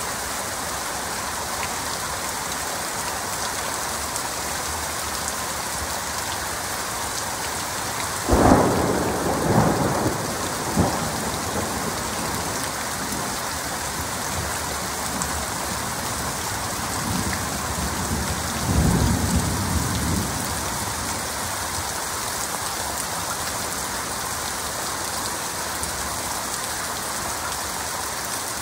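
Heavy rain falling steadily, with a sharp clap of thunder about a third of the way in that rolls on for two or three seconds, and a second, lower roll of thunder about two-thirds of the way through.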